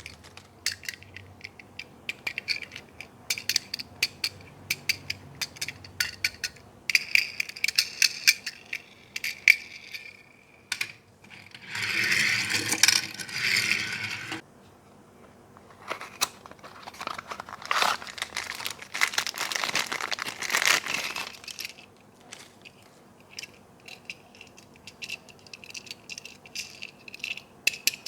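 Toys and their packaging being handled: a string of light clicks and taps, with two longer stretches of crinkling plastic, one about twelve seconds in and another from about sixteen to twenty-one seconds.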